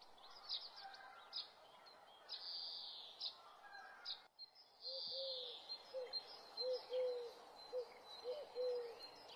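Faint birdsong: short high chirps, then, after a brief pause about halfway through, a run of short, low hooting notes, about two a second.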